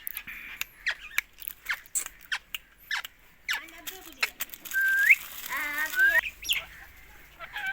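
Indian ringneck parrot calling: a string of short, sharp chirps, then a rising whistle about five seconds in, followed by a brief warbling chatter.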